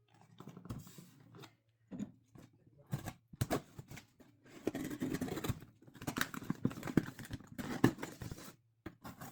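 A parcel being opened by hand: scissors snipping, with scraping and tearing of packaging in irregular bursts, busiest in the middle.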